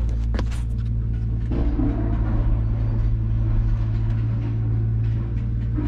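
Mother cat purring steadily while her kittens nurse, a continuous low rumble. A couple of sharp clicks in the first second.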